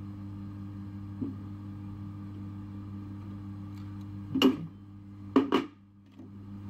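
Two loud, sharp clattering knocks from handling on a workbench, about four and a half and five and a half seconds in, with a smaller knock about a second in, over a steady low electrical hum.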